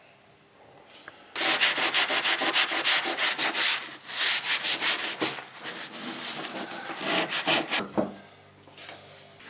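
Brisk back-and-forth rubbing of a small pad over a paper stencil on a wooden painting board, working pigment through the cut-out circle. The rapid scratchy strokes, about five a second, start about a second and a half in and stop shortly before the end.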